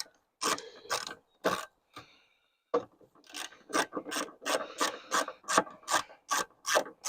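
Socket ratchet clicking rapidly as it turns out the T27 Torx bolt holding the rear light cluster, with a short pause about two seconds in.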